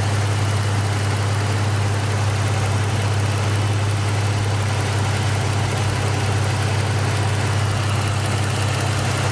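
Dodge Charger's V6 engine idling steadily with an even low hum.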